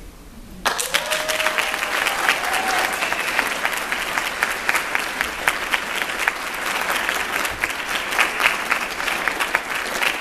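Audience applauding, breaking out suddenly just under a second in and going on steadily as a dense patter of claps.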